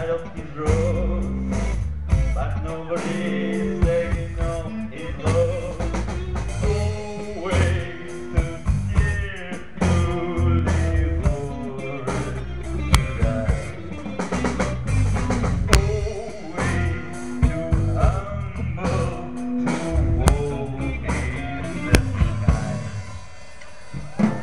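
Live band music: electric guitar and drum kit playing an instrumental, blues-rock passage.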